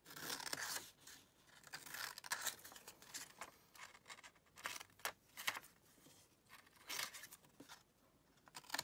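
Scissors cutting paper: a run of short, irregular snips with rustling of the sheet as it is turned between cuts.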